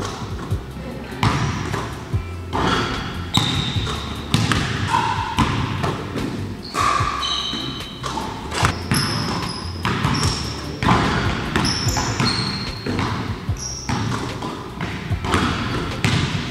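Basketballs bouncing on a hardwood gym floor, a thud about once a second, echoing in a large hall, with background music underneath.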